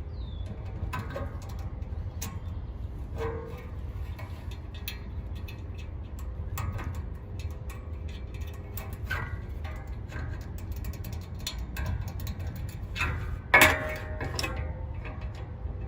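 Scattered metal clicks and clinks of hand tools at work on a condenser fan blade and motor shaft, with one louder clank near the end, over a steady low rumble.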